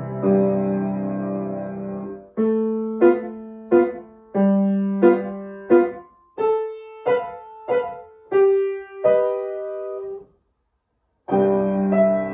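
Acoustic upright piano playing: a held chord, then a string of separate notes and chords struck one after another, each dying away. Near the end the sound cuts off for about a second before chords start again.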